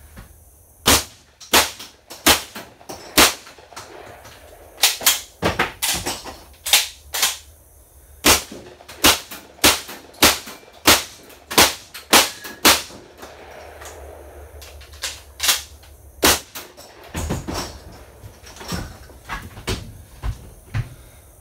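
Strings of gunshots fired from inside a school bus, about twenty in all, in quick runs with short pauses. The last few, near the end, are fainter.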